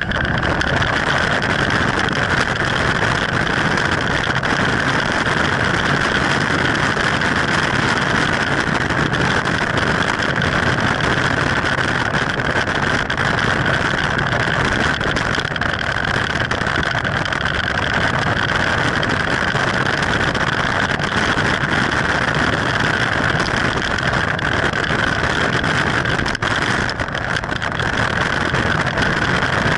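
Hard plastic wheels of a Big Wheel ride-on trike rolling fast down an asphalt street, heard from a camera mounted on the trike: a loud, steady rolling and rattling noise.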